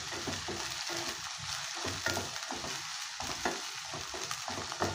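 Chopped onions sizzling in hot oil in a nonstick pan while a wooden spatula stirs them, with frequent short scrapes and knocks of the spatula against the pan. The onions are being sautéed until they turn light brown.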